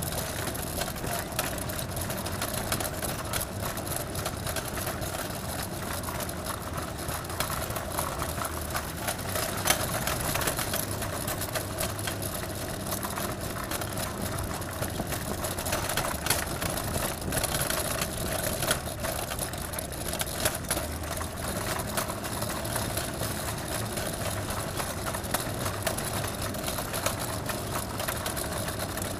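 City street ambience: steady traffic and engine noise, with a constant mid-pitched hum and scattered short clicks and knocks.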